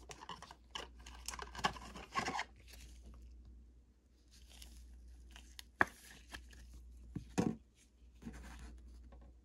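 Soft plastic rustling and scraping as a trading card in a thin penny sleeve is slid into a rigid plastic top loader by gloved hands, with a sharp click about six seconds in and a louder knock about a second and a half later.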